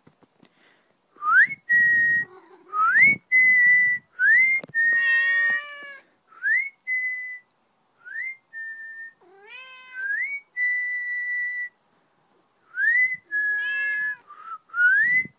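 A person whistles a repeated call about eight times, each a quick upward slide into a short held note, and a Maine Coon cat meows back three times, its calls overlapping the whistles. A single brief knock sounds about three seconds in.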